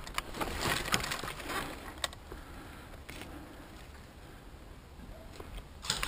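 Dry straw rustling and crackling as a person shifts against a pile of loose straw, loudest in the first couple of seconds, with a couple of sharp clicks about two and three seconds in.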